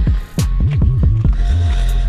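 Background music with deep bass notes sliding up and down and sharp percussive hits.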